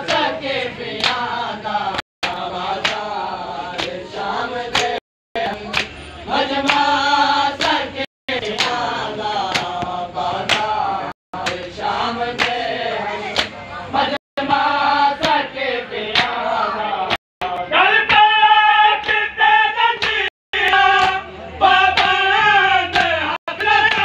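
Men's voices chanting a noha together, with bare chests slapped by hands in a steady rhythm (matam) under the chant.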